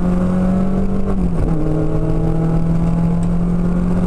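Seat Ibiza 16V rally car's four-cylinder 16-valve engine pulling hard, heard from inside the cabin over road noise. The engine note dips briefly about a second in, then holds and climbs slowly again.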